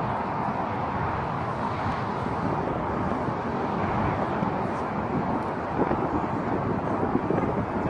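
Steady outdoor background rumble with no single sound standing out, a couple of brief small knocks near the end.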